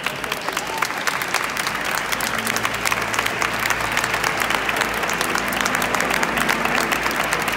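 Audience applauding steadily, the dense clapping growing a little louder. Faint held low notes join in about two and a half seconds in.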